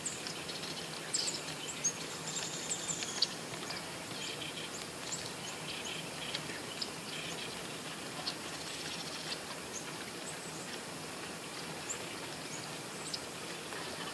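Small birds chirping in short, scattered calls, busiest in the first few seconds and sparser after, over a steady background hiss.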